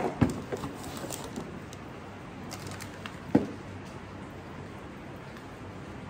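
Handling noises from a welding spool gun and its small parts: light clicks and taps in the first second or so and one sharper knock a little over three seconds in, then faint steady room noise.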